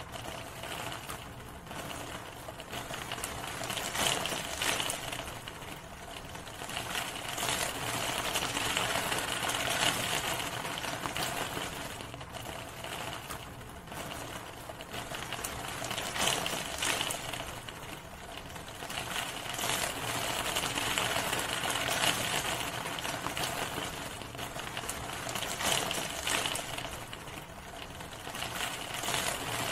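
Steady rain, a dense patter of individual drops, swelling and easing every few seconds.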